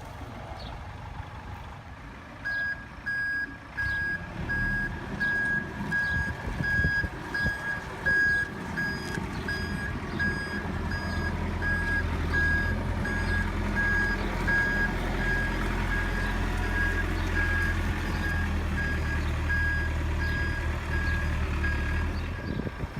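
A heavy machine's reversing alarm beeping steadily, about one and a half beeps a second, over a diesel engine running. The engine gets louder about halfway through.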